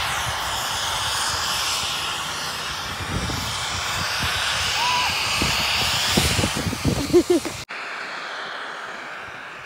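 Wind rushing over the microphone and the hiss of skis sliding over packed snow while skiing downhill. There are low rumbles from about three seconds in and a brief vocal sound near the end. About eight seconds in the sound drops suddenly to a quieter wind hiss.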